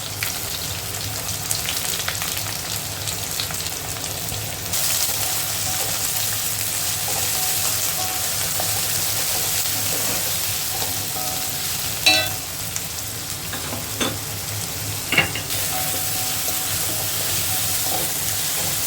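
Sliced onions and curry leaves sizzling in hot oil in a kadai while being stirred and sautéed, with a few knocks of the spoon against the pan. The sizzle grows louder about five seconds in and eases again near the end.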